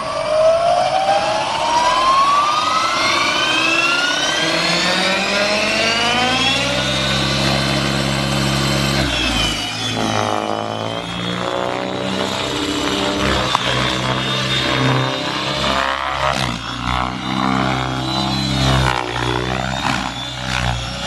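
Align T-Rex 600E electric RC helicopter spooling up: its motor and rotor whine rises steadily in pitch for about seven seconds, then levels off. From about ten seconds in it is flying, the whine rising and falling in pitch as it manoeuvres.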